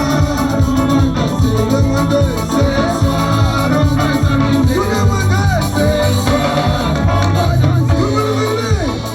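Upbeat Latin-style song with a steady beat, bass line and singing voice.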